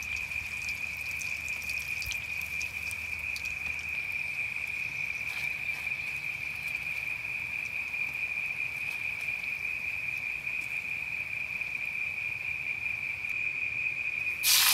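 A cricket-like insect trilling steadily at one high pitch, with a few faint scattered clicks. Just before the end, a loud frying sizzle starts.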